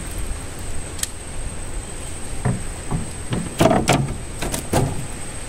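Fishing rods and gear knocking and clattering against a wooden boat: a sharp click about a second in, then a run of short knocks over the next few seconds.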